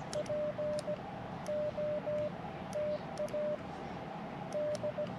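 Morse code (CW) from the Elecraft KX2 transceiver's speaker: a single steady tone keyed on and off in dots and dashes, sent by hand with a paddle. It comes in four short groups about a second apart, as when calling for contacts.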